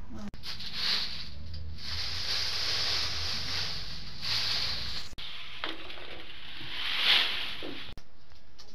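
Dry leaves and twigs rustling and crunching as they are handled, in a rough noise that swells and fades several times and stops abruptly twice.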